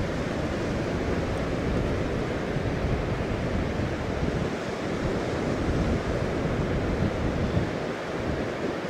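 North Sea surf breaking on the beach in a steady wash, with wind buffeting the microphone.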